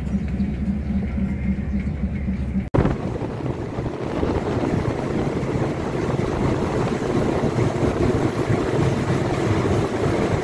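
A Thai train heard from on board while it is moving. For the first three seconds there is a steady engine drone with a low hum. Then, after a sudden break, a louder, noisier running sound of the train on the rails.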